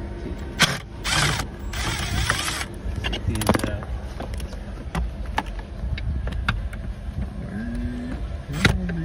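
Hand tools clicking and knocking on metal and plastic under a car's dashboard as screws and a trim plate are removed, with two short rasping bursts about one and two seconds in.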